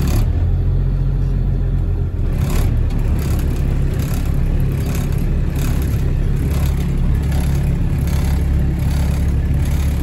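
Motor vehicle engine running with a steady low rumble while driving slowly over a rough dirt track, with some light rattling.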